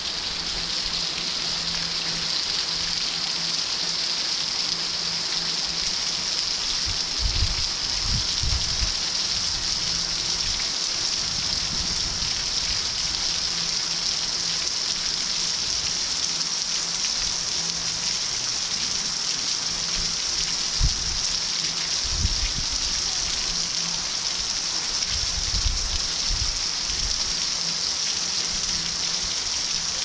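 Heavy rain falling steadily on roofs and paving, an even hiss, with a few brief low bumps.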